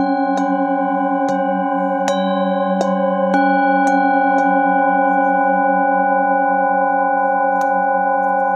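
A set of metal singing bowls struck one after another with a padded mallet, about once a second for the first four seconds, then once more faintly near the end. Their tones overlap and ring on steadily with a slow wobble.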